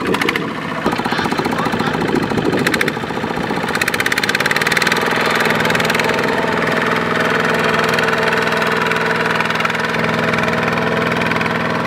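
Kubota ZT120 walking tractor's single-cylinder diesel engine running with a rapid, knocking putter while it labours to haul its loaded trailer out of the mud. The engine settles into a steady run about four seconds in.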